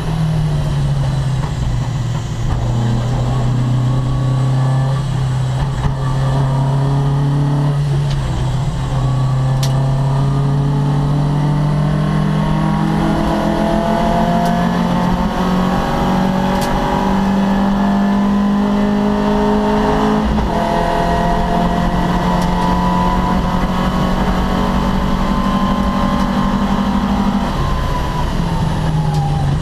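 Opel Kadett C racing car's engine running hard and loud throughout, its pitch climbing steadily and stepping up or down several times as the revs change through the gears.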